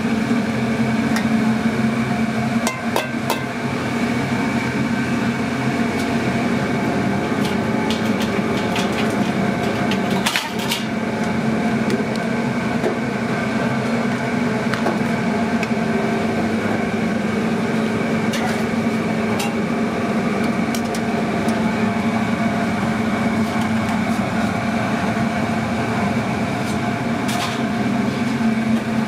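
Steady mechanical hum of kitchen equipment, with a few clinks and scrapes of serving utensils against metal and foil pans, one near the start, one about ten seconds in and one near the end.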